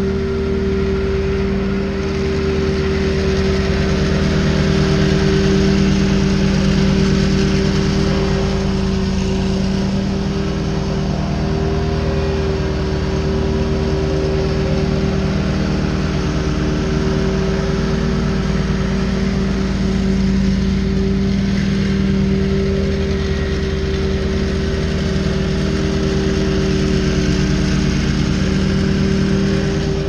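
Walker riding mower's engine running at a steady pitch while mowing, with a steady hiss from the cutting deck and grass-catcher system.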